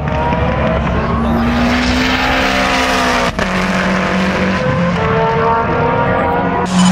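Time attack race car engines running hard on track: one car's engine note sags slowly in pitch as it passes and pulls away. About three seconds in it cuts abruptly to another car's engine, which gets louder near the end.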